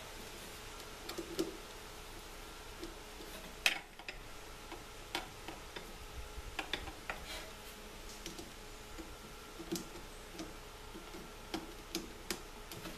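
A screwdriver working a hose clamp on a hydraulic lift pump's hose fitting: scattered light metal clicks and taps, with one sharper knock about four seconds in.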